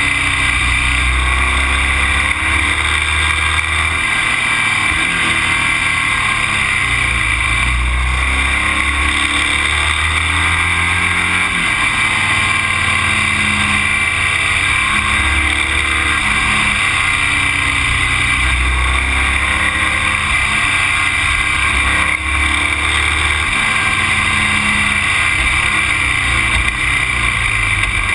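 A motor vehicle's engine running, its pitch slowly rising and falling as the speed changes, under a steady loud rush of wind and road noise.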